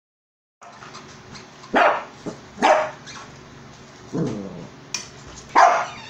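Shih Tzu barking: three short, loud barks, with a lower, longer bark between the second and the third.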